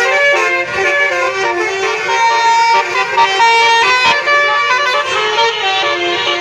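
Bus 'telolet' basuri horn playing a melody, its multi-tone notes stepping from pitch to pitch and held in turn.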